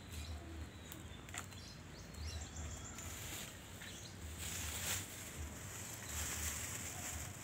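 Faint outdoor rural ambience with scattered bird chirps and a high insect-like hiss that swells twice, over a low rumble.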